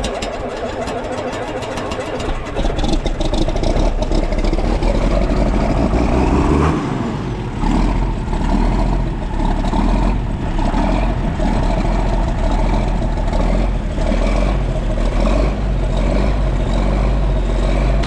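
An engine starts up and runs steadily with a deep hum, getting louder about two and a half seconds in.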